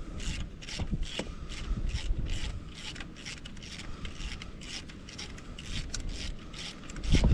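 Hand socket ratchet clicking in quick, even strokes, about four a second, as it backs out an exhaust manifold bolt. A louder low rumble comes in right at the end.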